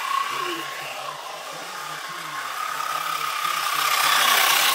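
Toy train running around its track: its small motor and wheels make a steady whir with a thin whine, growing louder near the end as the train passes close.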